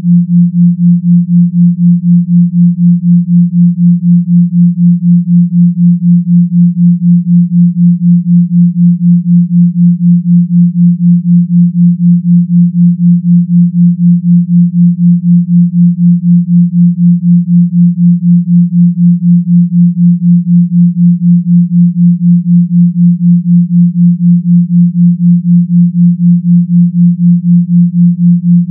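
A steady low pure tone at about 174 Hz, made of two sine tones, 172 Hz in the left ear and 176 Hz in the right, that form a 4 Hz theta binaural beat. It throbs evenly about four times a second.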